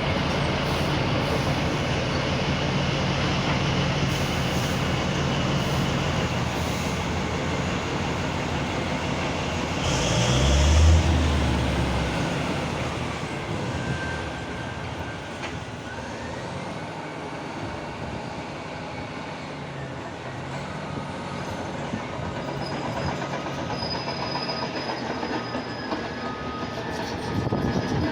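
Caterpillar D8R bulldozer working: its diesel engine running with the clatter of its steel tracks, swelling to a loud surge about ten seconds in, then running quieter.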